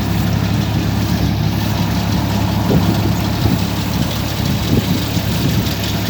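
Kubota DC-35 combine harvester's diesel engine running steadily with a constant low hum.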